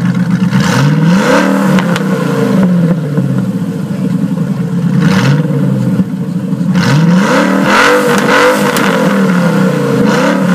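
TVR Chimaera 4.0's Rover V8 exhaust, the engine idling and blipped to sharp revs that rise and fall quickly. There are a couple of blips near the start, one around five seconds in, and a rapid run of them from about seven seconds in.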